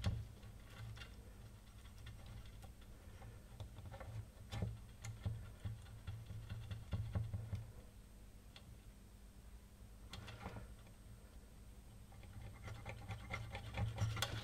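Faint scattered clicks, taps and scratches of small parts and wires being handled on a workbench, with a brief soft rustle about ten seconds in, over a steady low hum.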